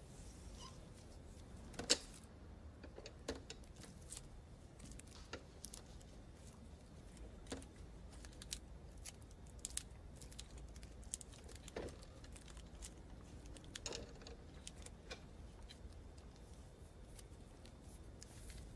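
Irregular small clicks and taps of hands working a metal Braille slate and stylus, with a louder sharp click about two seconds in.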